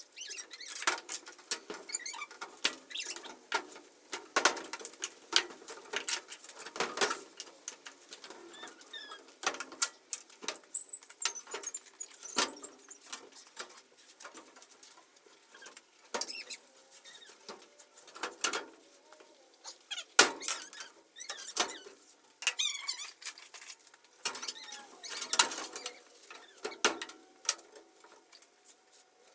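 Irregular knocks, clatter and short squeaks of wooden boards being shifted and handled.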